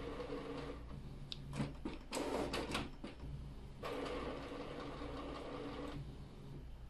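Canon PIXMA TS5140 inkjet printer's internal motors whirring as it initializes after new ink cartridges are fitted, with a run of clicks about two seconds in and a second steady whir that stops about six seconds in.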